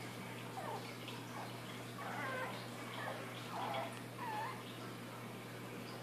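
Boston Terrier puppy howling: a string of about six short, high-pitched cries that bend up and down in pitch.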